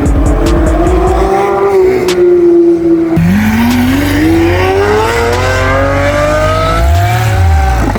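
A sports car's engine accelerating hard: its pitch climbs, drops sharply at a gear change about three seconds in, then climbs steadily again through the next gear.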